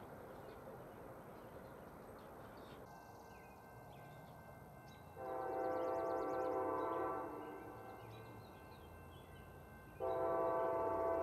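Five-chime Nathan K5LA air horn on an Amtrak Siemens Charger locomotive, sounding twice as the train approaches: one blast of about two seconds about five seconds in, then a second blast starting near the end and still going.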